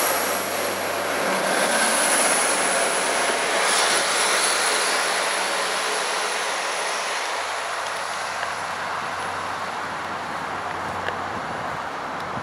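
A train passing at speed: a steady rushing, jet-like noise that slowly fades away as it moves off.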